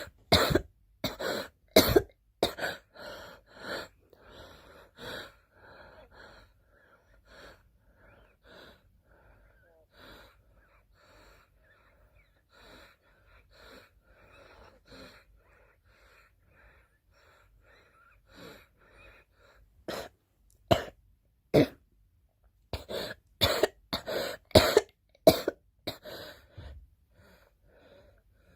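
A girl coughing in fits: a run of loud coughs at the start, softer and weaker coughs through the middle, and another loud fit from about 20 seconds in.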